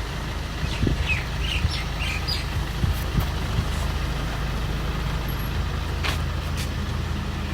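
Small turbocharged diesel car engine, about 1200 cc, idling steadily while a carbon-cleaning machine feeds gas into it. It is purging carbon, with black soot blowing out of the exhaust.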